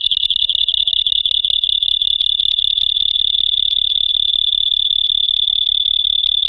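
Loud, high-pitched electronic whine: one steady tone with a fast buzzing flutter, the audio fault of a GoPro camera's recording.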